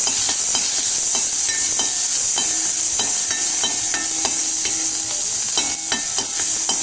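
Ground karpooravalli, tulsi and garlic paste sizzling in hot ghee as it is sautéed and stirred in a pan, with frequent short knocks of the stirring utensil against the pan.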